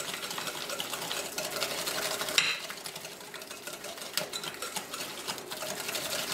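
Wire balloon whisk beating thick chocolate brownie batter in a glass bowl: a fast, even ticking of the whisk wires against the glass, with one sharper knock about two and a half seconds in.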